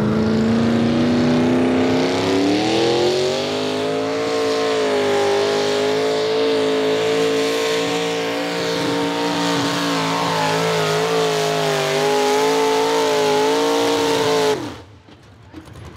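Small-block V8 engine of a modified Allis-Chalmers pulling tractor, running at high revs under load as it drags the weight-transfer sled. Its pitch climbs over the first few seconds, then holds high and steady with small dips. Near the end the engine sound drops away sharply as the revs fall.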